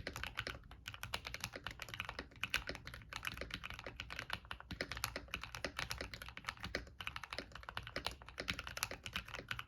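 Fast, continuous typing on a modded MK870 tenkeyless mechanical keyboard with KTT Kang White linear switches, PBT keycaps and a coin-weighted case: a rapid stream of key strokes with a brief pause about seven seconds in.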